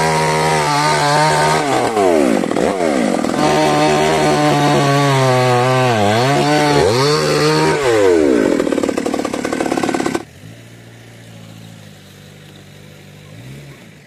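Petrol chainsaw cutting through a thick banyan trunk, its engine revving up and dipping again and again as the chain bites into the wood. About ten seconds in, the loud saw cuts off sharply, leaving a much quieter, steady engine hum with a brief rise near the end.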